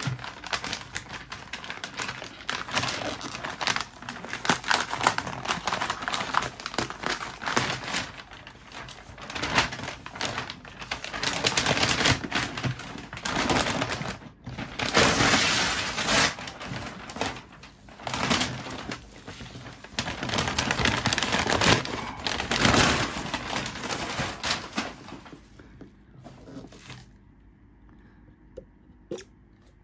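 Stiff brown kraft wrapping paper crinkling and tearing in repeated loud surges as it is ripped and pulled off a suitcase, dying down near the end.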